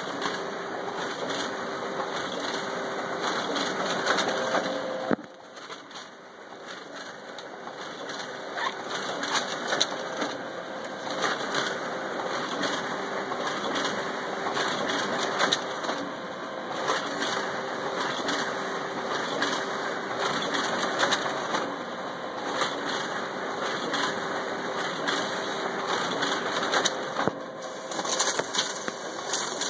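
Canon imageRUNNER ADVANCE 8105 copier and finisher running, a steady mechanical whir with rapid clicking and clatter of paper handling. It quiets briefly about five seconds in, then runs on.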